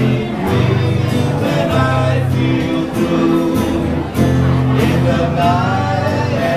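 Two men singing a song together to a strummed acoustic guitar.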